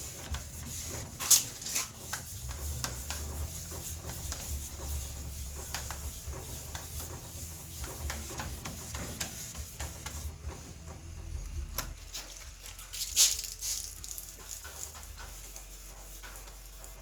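Sandpaper rubbed by hand over a surface in quick scratchy strokes, with a few sharper knocks about a second in and again near thirteen seconds. A low hum underneath stops about twelve seconds in.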